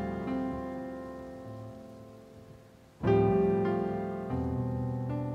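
A slow solo piece on a keyboard in a piano voice. Held chords fade away over about three seconds, then a new chord is struck about three seconds in, followed by a few more notes.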